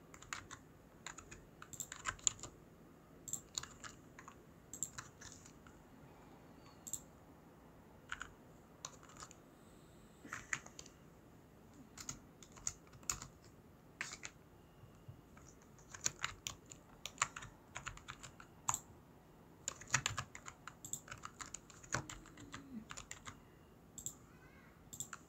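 Computer keyboard keys and mouse buttons clicking sporadically and faintly, in irregular single taps and short clusters.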